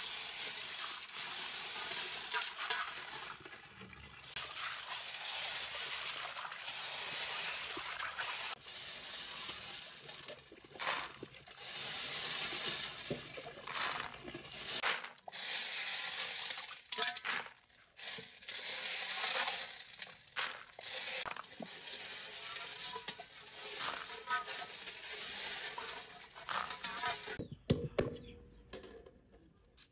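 Tap water pouring into a metal basin while hands scrub and rinse freshwater snails, the shells rattling and clicking against each other and the basin. Near the end come a few sharp chops of a cleaver on a wooden chopping block.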